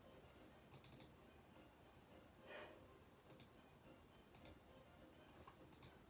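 Faint clicking of a computer being used: four small clusters of two or three quick clicks, with a soft breath about two and a half seconds in.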